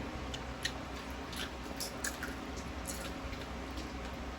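People chewing soft pork and smacking their lips, faint scattered wet clicks over a low steady hum.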